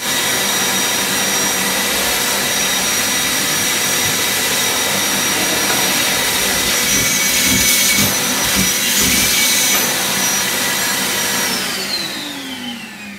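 Vacuum cleaner running with a steady whine, then switched off near the end, its pitch falling as the motor winds down.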